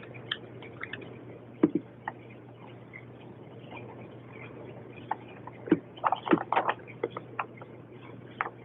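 Small clicks, taps and rustles of a device and its cardboard and plastic packaging being handled during unboxing, busiest about six to seven seconds in, over a low steady hum.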